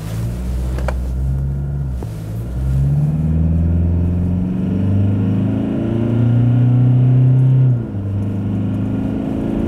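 Toyota Hilux's 2.4-litre four-cylinder turbodiesel accelerating hard at full throttle in power mode. The engine note climbs steadily and drops back as the automatic gearbox upshifts, about two seconds in and again about eight seconds in.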